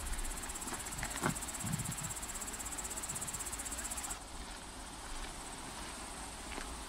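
A cricket-type insect in the grass giving a high, rapidly pulsing trill that stops suddenly about four seconds in. Low wind rumble on the microphone throughout, with a soft knock about a second in.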